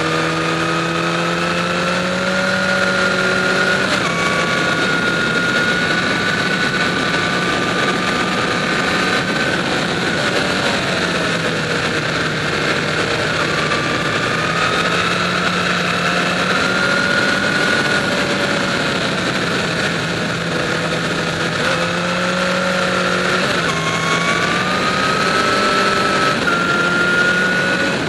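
Inline-four sport motorcycle engine pulling along at road speed, its note rising as it accelerates and dropping back several times, around 4, 11 and 23 seconds in. A steady rush of wind runs under it.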